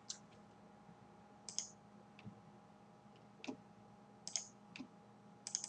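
Scattered computer mouse clicks, several in quick pairs like double-clicks, over a faint steady hum.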